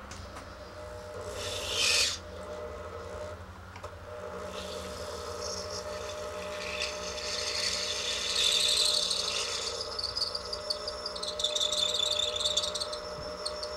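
A hand tool scraping and rasping on acrylic in uneven strokes, over a steady hum. The loudest scrapes come about two seconds in and again from about eight seconds on.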